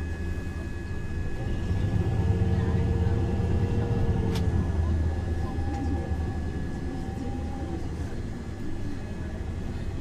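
MAN Lion's City NL273 T2 city bus with an LPG engine idling at a standstill: a steady low engine rumble that swells for a few seconds from about two seconds in, then settles back.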